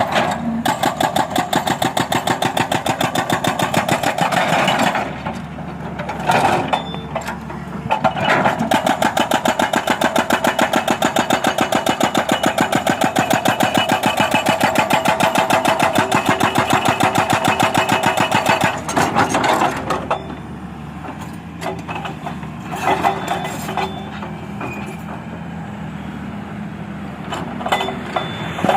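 Excavator-mounted hydraulic breaker hammering a road surface in rapid, even blows, in runs of several seconds with short breaks. The longest run lasts about ten seconds. Near the end the blows mostly stop and the excavator's engine runs on under them, with a few short bursts of hammering.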